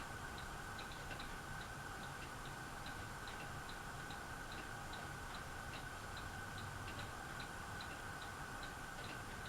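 Harbor Breeze Aristocrat ceiling fan running on its low speed: a steady faint whine with a light clicking about two to three times a second.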